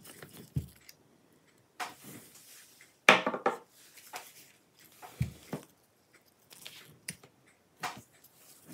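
A few separate small clicks and knocks from working inside an opened laptop: a small screwdriver undoing the M.2 SSD's retaining screw and the drive being handled in its slot. The loudest knock comes about three seconds in.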